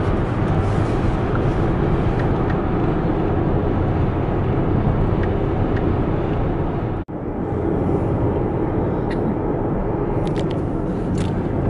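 Steady road and engine noise inside a car's cabin cruising at highway speed. The sound cuts out for an instant about seven seconds in, then carries on as before.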